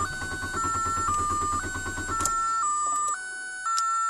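A car engine cranking on its starter for about two seconds without catching, typical of a tank run out of gas, under a beeping electronic melody.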